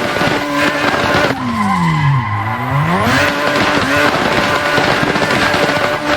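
Nissan Silvia S15 drift car with a 700 whp engine held at high revs while sliding, its tyres squealing. About a second in, the revs fall away sharply and climb back up within about a second and a half, then hold high again.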